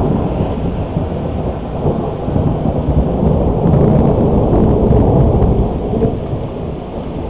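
Rolling thunder rumbling, swelling a couple of seconds in and dying away toward the end, over the hiss of steady rain.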